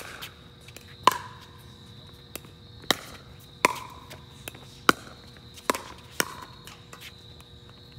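Pickleball paddles hitting a plastic pickleball back and forth in a rally: a run of sharp pops roughly a second apart, some with a short ring, and smaller taps between them.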